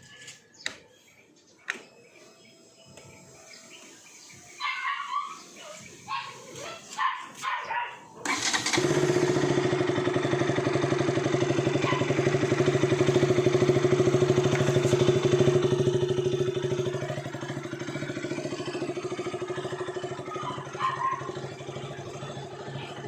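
KTM RC 200's stock single-cylinder four-stroke engine starting after about eight seconds of scattered clicks and short noises, then idling steadily on the standard exhaust. The idle is loudest just after start-up and eases down a little about two-thirds of the way through.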